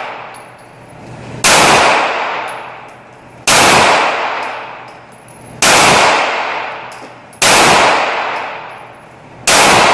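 Outro sound effect: five loud, sudden hits about two seconds apart, each with a long ring that slowly dies away.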